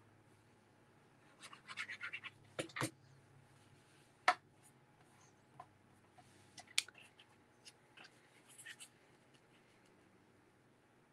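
Quiet handling of cardstock on a cutting mat: short scratchy rustles of paper being moved and pressed, then scattered sharp taps and clicks, the loudest a single knock a little over four seconds in, as a glued panel is laid onto a card base.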